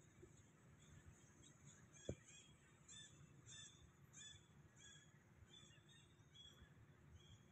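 Faint, high chirping animal calls repeated over and over, about one every half second or so, with a single dull thump about two seconds in.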